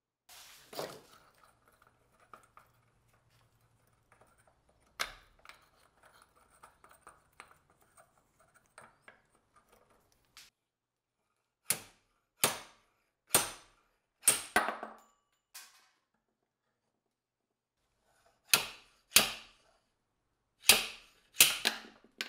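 Light handling and scraping noises, then a run of sharp knocks on hard parts, a pause of a few seconds, and a second run of knocks near the end, about ten in all.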